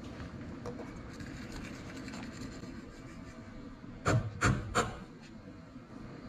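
Spoon scraping and stirring in a stainless steel saucepan of gravy as flour is stirred in. About four seconds in come three sharp knocks in quick succession, the loudest sounds here.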